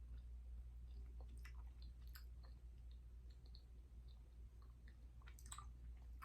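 Faint chewing of a chewy caramel, with scattered small mouth clicks over a steady low hum.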